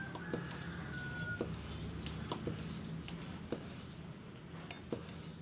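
Hand-operated high-pressure PCP air pump being stroked, a short click about once a second, over a steady low hum. A rooster's crow trails off in the first second and a half.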